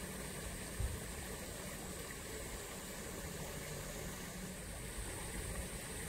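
Steady rush of flowing water, with a brief low thump about a second in.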